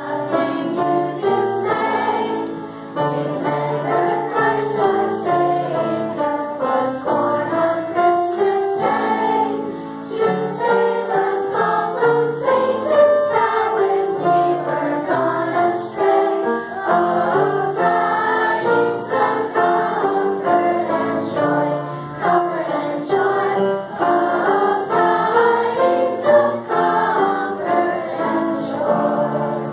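A choir of children and adult women singing a song together, with instrumental accompaniment underneath.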